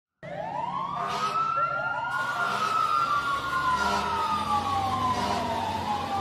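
Emergency-vehicle sirens wailing: two or more overlapping tones that rise and fall slowly, over a low steady hum.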